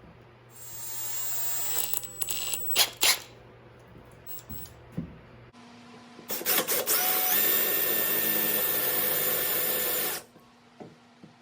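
Cordless drill with a step bit cutting a hole through the metal vise stand. A first run of drilling builds up with a few sharp clicks. After a pause, a longer steady whine runs for about four seconds and stops abruptly near the end.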